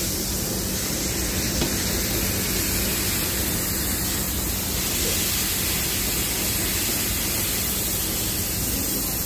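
Burger patty sizzling steadily on a hot flat-top griddle as it is pressed flat under parchment paper, with a steady low hum beneath.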